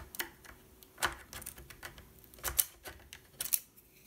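Irregular light clicks and ticks of a small screwdriver working against the hard plastic chassis of a Roborock S7 robot vacuum, levering at a small metal clip, with a few sharper clicks about a second in and in the second half.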